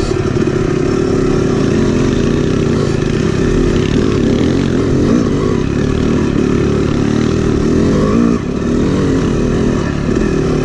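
Yamaha YZ250X two-stroke dirt bike engine running close up, heard from on the bike as it is ridden along a dirt trail, its revs wavering slightly, with a brief drop in revs about three-quarters of the way through.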